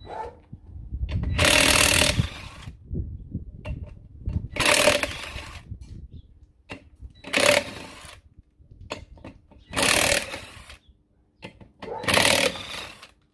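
Impact wrench run in five short bursts, about one every two and a half seconds, undoing the wheel nuts on a tractor's rear wheel.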